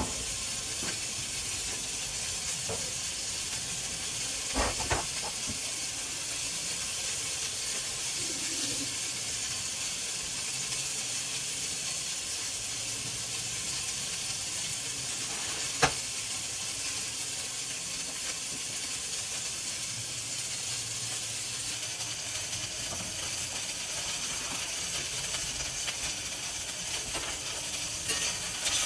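Steady hiss of food sizzling in a pan on the stove, broken by a few sharp clicks: a pair about five seconds in and a single one about sixteen seconds in.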